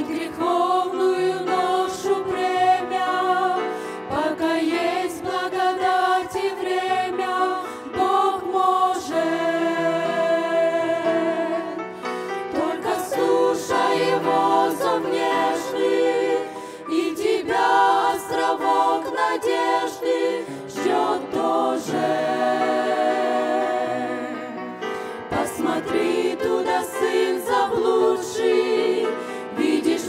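A women's vocal group singing a Christian hymn together into microphones, several voices held on long notes.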